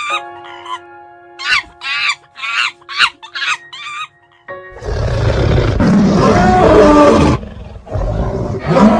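A run of short, sharp animal calls over steady background music, then a loud animal roar starting about halfway through and lasting about three seconds, with a second roar beginning near the end.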